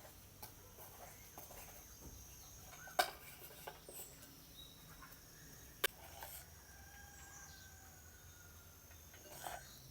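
Farmyard chickens clucking softly over a steady high insect trill, with two sharp clicks, one about three seconds in and one about six seconds in.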